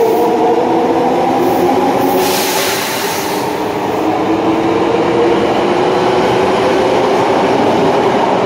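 Subway train on the Osaka Metro Sakaisuji Line running through the station, a steady whine of several tones over rail rumble, with a burst of hiss about two seconds in.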